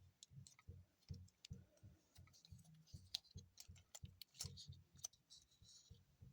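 Faint, irregular clicks and light taps of a plastic Masterpiece Smokescreen Transformers figure's joints and panels being folded and handled, close to near silence.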